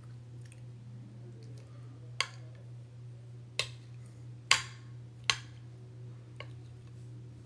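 Metal spoon clinking against a glass baking dish of food: five sharp clinks, the loudest about halfway through with a short ring after it, over a steady low hum.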